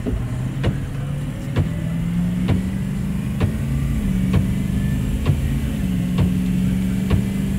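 Diesel V8 of a 2003 Ford F-450 tow truck accelerating hard, heard from inside the cab. Its pitch climbs and dips twice as the transmission shifts up. A short knock comes about once a second from the windshield wipers.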